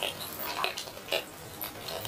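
Close-miked chewing and mouth sounds of someone eating grilled chicken: a few short, irregular smacks.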